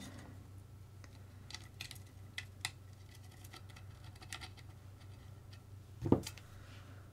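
Faint scattered clicks and light scrapes of small metal parts and a screwdriver as a screw is fitted through an insert in a carbon-fibre motor mount, with one louder dull thump about six seconds in.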